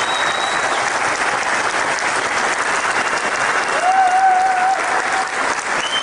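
Audience applauding steadily in a hall, with a single held call rising above the clapping about four seconds in.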